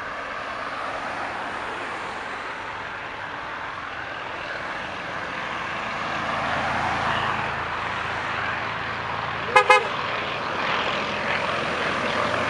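Boeing 737-800's CFM56 turbofans at takeoff thrust: a steady rushing jet noise that grows louder as the airliner accelerates down the runway and lifts off. About ten seconds in, two quick horn-like toots stand out as the loudest sound.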